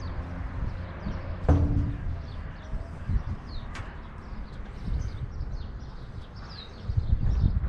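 Small birds chirping repeatedly in short, falling notes over wind buffeting the microphone in uneven gusts, strongest near the end. About one and a half seconds in comes a single sharp knock with a brief ring.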